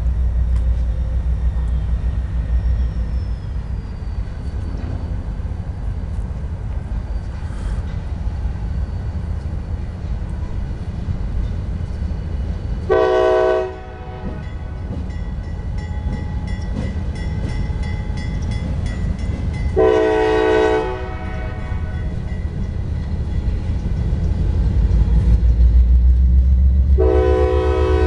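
A freight diesel locomotive's horn sounds three separate blasts of about a second each, several seconds apart. Between them runs the low rumble of the locomotive's engine and the train, growing louder near the end as it approaches.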